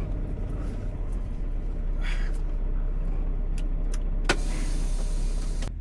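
Truck engine idling steadily with a low rumble; about four seconds in a sharp click is followed by a second and a half of hiss that cuts off suddenly.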